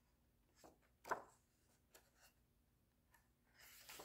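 Near silence with a few faint clicks, the clearest about a second in, then the rustle of a picture book's paper page starting to turn near the end.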